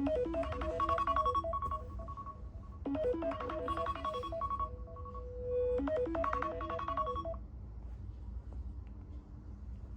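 Phone alarm tone: a short melody of bell-like notes that repeats about every three seconds, three times, then stops abruptly a little over seven seconds in. A low, steady background hum runs underneath.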